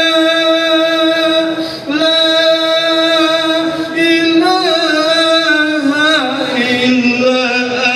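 A man chanting an Arabic prayer of repentance (istighfar) in long held notes that break briefly twice, his pitch stepping down about six seconds in.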